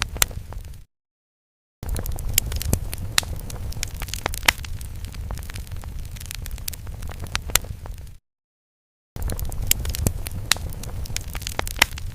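Fire crackling sound effect: a low rumble of flames with frequent sharp pops and crackles. It cuts to complete silence for about a second twice, near the start and about two-thirds of the way through.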